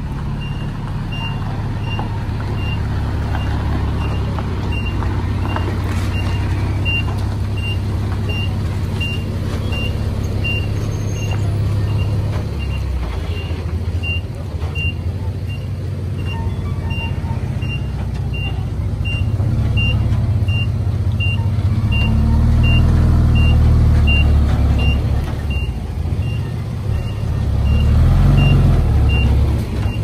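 A heavy diesel engine of earthmoving machinery runs with a reversing alarm beeping steadily, about one and a half beeps a second. The engine grows louder and more laboured in the last third, as under load.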